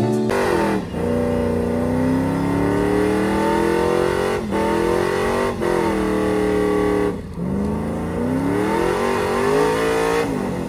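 Pickup truck engine revving hard during a burnout, rising in long climbs with several sharp drops in revs.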